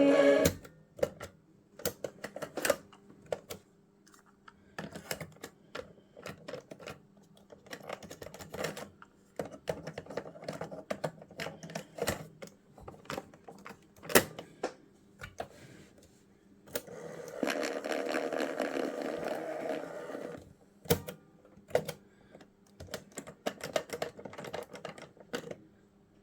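Irregular sharp clicks and knocks of things being handled, over a low steady hum, with a denser stretch of scraping noise lasting about three seconds past the middle.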